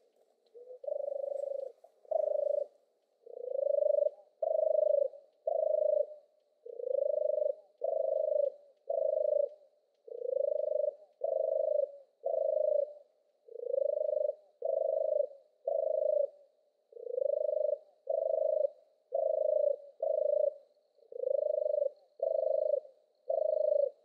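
European turtle dove singing: its purring song of short rolling notes, repeated about once a second, mostly in pairs and threes.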